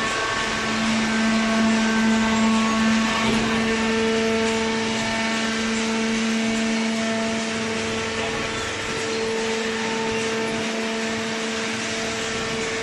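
A machine's motor running steadily: an even hum with a constant whine over a broad hiss.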